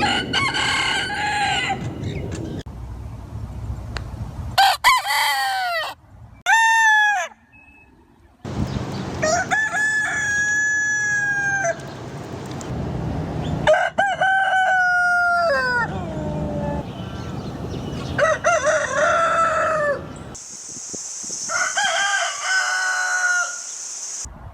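Roosters crowing, about seven separate crows one after another, each one to three seconds long, with the background noise changing abruptly between them. A steady high hiss sits behind the last crow.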